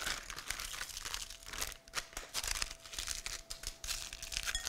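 Plastic instant-ramen packet crinkling and tearing as it is opened and the dry noodle block is pulled out, an irregular run of rustles and crackles.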